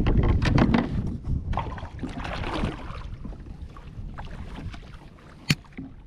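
Wind buffeting the microphone and choppy water lapping at a kayak, with scattered light knocks and clicks. The wind gust dies down after about a second, and a single sharp click comes near the end.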